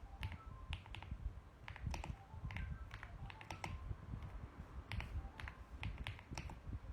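Mechanical keyboard being typed on: irregular runs of quick keystroke clicks, some keys landing close together, with short pauses between runs.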